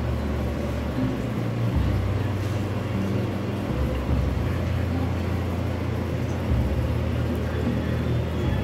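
Background music carried by a low bass line that steps between a few notes about every second or two.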